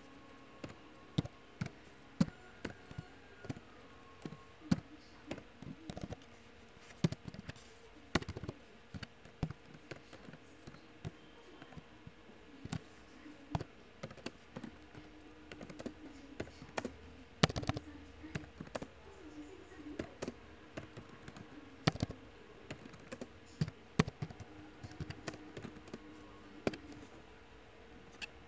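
Typing on a computer keyboard: irregular key clicks at an uneven pace, some strokes noticeably louder than others.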